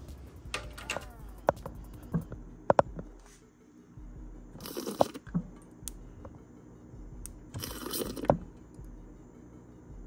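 Knocks and clatter of a pot and utensils being handled at the stove, with two short hissing bursts about five and eight seconds in.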